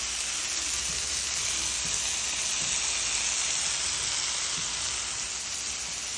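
Chicken malai boti skewers sizzling steadily in a hot nonstick pan over high heat.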